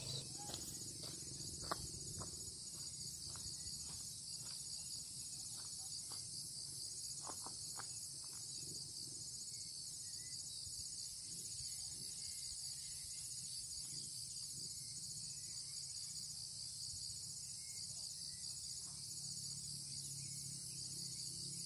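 Steady, high-pitched chorus of insects with a fine rapid pulsing running through it, with a few faint clicks in the first half.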